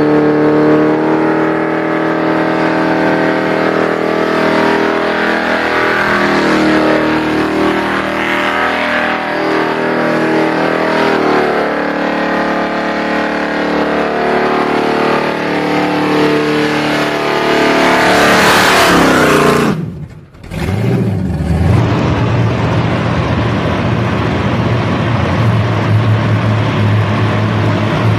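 Supercharged big-block V8, a Pro Stock 460 with an 8-71 blower, held at high revs with wavering pitch during a burnout. After a sudden break about twenty seconds in, a blown V8 El Camino runs at a steady, lower note inside a parking garage.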